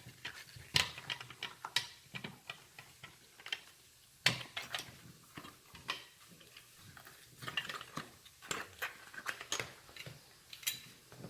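Irregular clicks and knocks of small metal parts being handled as the switch assembly is worked loose from a dental chair foot pedal's housing.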